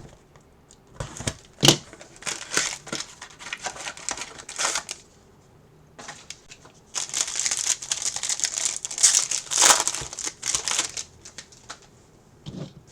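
Wrapping of a sealed trading-card box being torn and crinkled open by hand, in two spells of crackling with a sharp snap early in the first.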